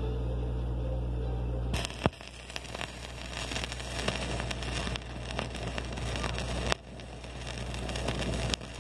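A steady low hum that cuts off about two seconds in, then dense crackling with scattered sharp clicks and pops.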